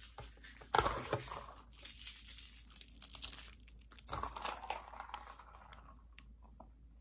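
Rustling and crinkling of takeout packaging being handled as a drink cup is fetched, with one sharp knock about a second in. The rustling dies down near the end.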